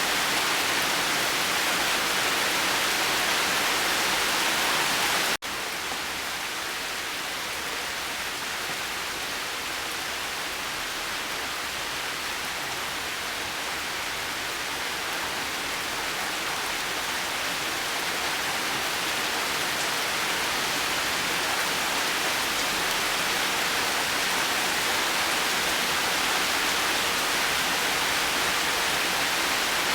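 Heavy rain as a steady, dense hiss. About five seconds in it cuts out for an instant, then comes back a little quieter and slowly builds again.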